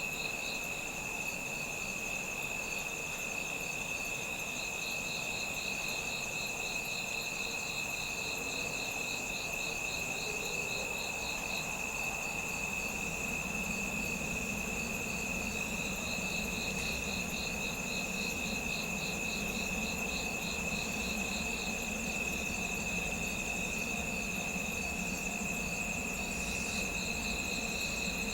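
Autumn night insects such as crickets calling: two steady, continuous high trills with a pulsing chirping trill that fades in and out.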